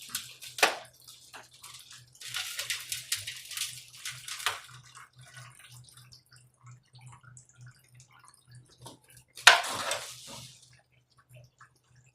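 Dirty water splashing and trickling as the blocked water is drained out of a Samsung front-load washing machine, with a few clinks and one louder splash about nine and a half seconds in.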